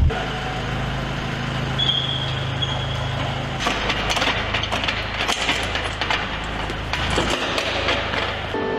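A steady low machine hum, then from about three and a half seconds in a busy run of sharp clicks and knocks as ground crew work at the F/A-18 Hornet's nose landing gear and tow bar.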